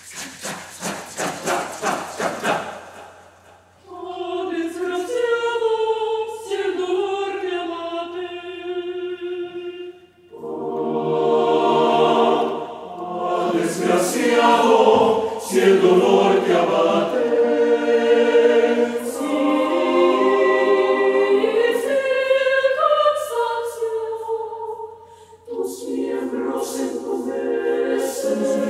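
Mixed choir of men's and women's voices singing unaccompanied, in sustained chords. It opens with about two seconds of rapid, sharp sounds. The full choir comes in louder about ten seconds in, and the voices break off briefly near the end before coming back.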